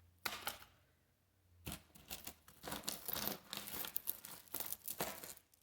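Loose costume jewelry being sorted by hand, giving crinkly rustling and small clicks of beads and chains in short bursts. There is a brief lull about a second in.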